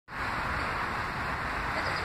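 Steady, even rumble of an R160 New York City subway train approaching along elevated tracks, still some distance off.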